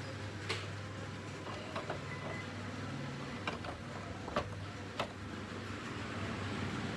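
A steady mechanical hum with a low drone, broken by about six sharp clicks or taps, two close together about two seconds in.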